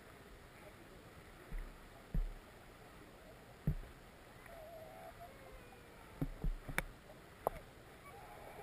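Shallow river water heard through a submerged camera: a steady, muffled hiss of flow. Scattered low knocks and thumps, with a quick run of them in the second half and a couple of sharp clicks.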